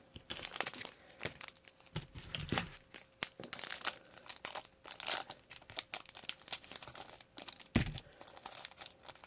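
The crinkly wrapper of a small blind-bag toy figure being handled and torn open, with irregular crackling and rustling. One louder thump about eight seconds in.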